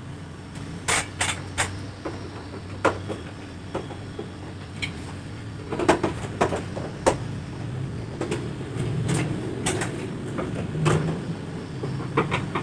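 Scattered clicks and knocks of hand work on a Panasonic split air-conditioner's indoor unit: its three cover screws being unscrewed, with someone shifting on a wooden stepladder.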